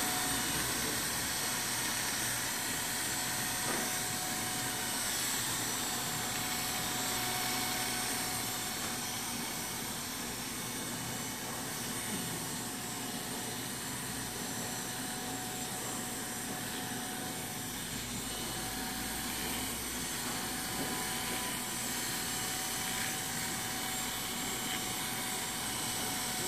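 Corded electric hair clippers running with a steady hum, cutting hair clipper-over-comb to taper a haircut.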